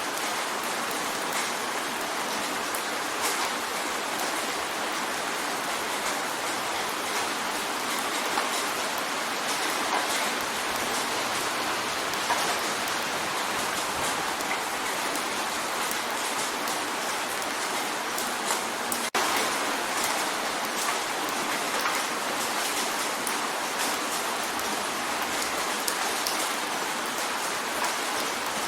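Steady rain drumming on a windowpane: a dense, even patter with many small individual drop taps. Near two-thirds of the way through, the sound cuts out for an instant and resumes.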